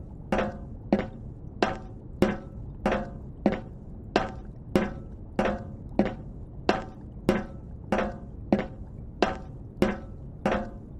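A steady, evenly paced series of sharp clanks, about three every two seconds, each ringing briefly with a metallic pitched tone.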